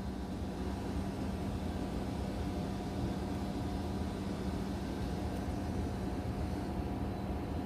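Steady low hum and hiss of room background noise, with one constant droning tone and a low rumble, like an air conditioner running.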